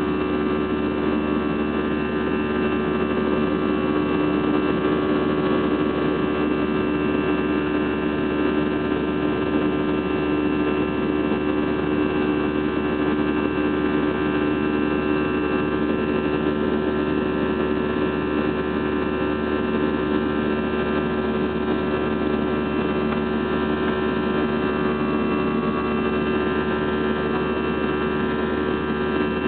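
Steady drone of an Airbus A320's jet engines heard inside the cabin, shortly after takeoff, with several steady humming tones over an even rush.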